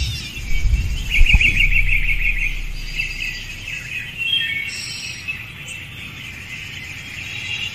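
Small birds chirping and singing, with a fast trill about a second in. A low rumble and a thump sound underneath in the first two seconds.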